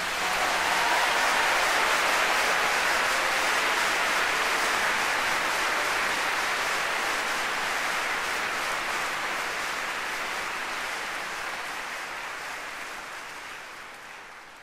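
Large concert-hall audience applauding, the applause fading away near the end.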